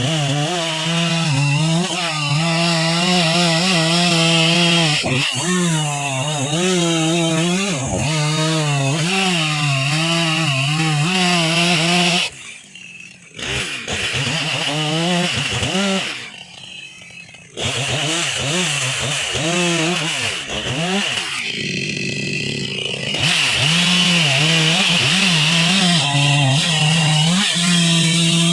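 Chainsaw cutting pine wood at high throttle, its engine pitch dipping and recovering as the chain bogs under load. It drops back to a low idle twice, about twelve seconds in and again around sixteen seconds, before revving up again.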